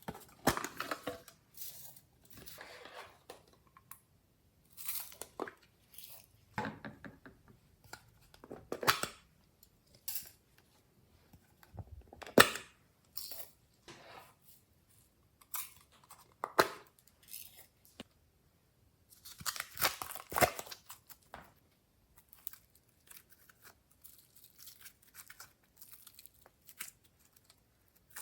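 Hands working glossy slime: irregular sticky clicks, crackles and squelches as the slime is pressed, stretched and folded, with its air pockets popping.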